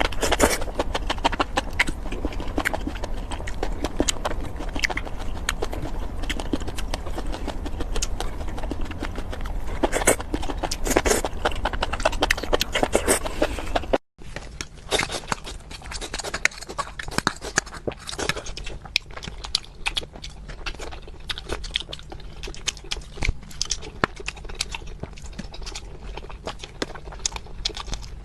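Close-up mouth sounds of a person eating: wet chewing and smacking in a dense run of small clicks. The sound drops out for an instant about halfway through, at an edit.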